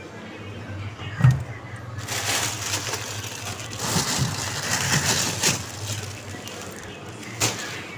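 Thin plastic bag crinkling and rustling as it is grabbed and pushed about by hand, starting about two seconds in and easing off near the end. A single knock comes about a second in, and a low steady hum runs underneath.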